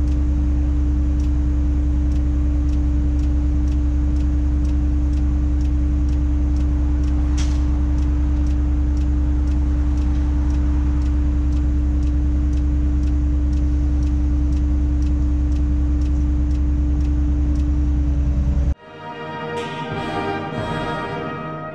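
Tadano 180G-5 crane running, heard inside its operator's cab during a lift: a steady low engine drone with a constant hum and a light tick about twice a second. About nineteen seconds in it cuts off suddenly and background music takes over.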